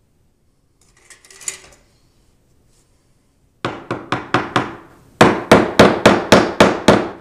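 Hammer tapping a wooden wedge shim in under a bullnose to level it: a quick run of about five sharp strikes, a short pause, then about nine more in rapid succession.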